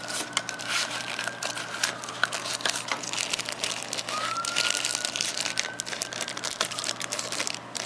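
Thin plastic packaging wrap crinkling and rustling as hands unwrap and handle it, with many small crackles.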